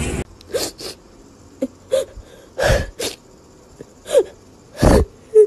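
Pug puppy sneezing, snuffling and giving brief whimpers: a string of short breathy bursts, some with a little squeaky cry, irregularly spaced.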